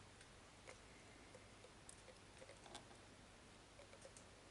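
Near silence: faint room tone with a few soft, scattered clicks.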